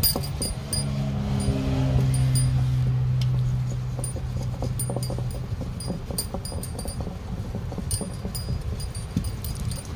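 Hand-held tyre patch stitcher rolled over a repair patch inside a car tyre, its serrated wheel clicking in quick, irregular ticks. A low hum sounds in the background from about one to five seconds in.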